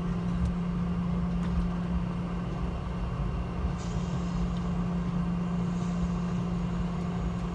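Cabin noise of a Boeing 717-200 airliner taxiing: the rear-mounted Rolls-Royce BR715 turbofans give a steady low hum over a rumble, with a faint hiss joining about four seconds in.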